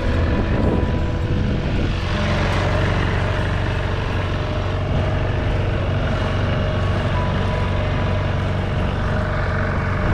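Small outboard motor pushing an inflatable dinghy, running steadily at a constant speed, with a rush of wind and water over it.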